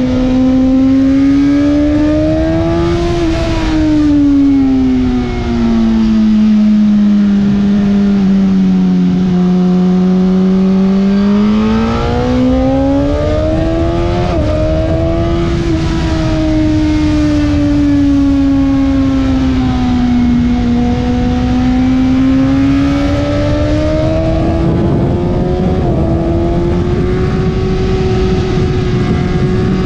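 2020 Suzuki GSX-R1000R's inline-four engine running hard on track. Its pitch sinks as it slows for corners and climbs again as it drives out, with two quick upshifts, about halfway and near the end. A steady rushing noise runs underneath.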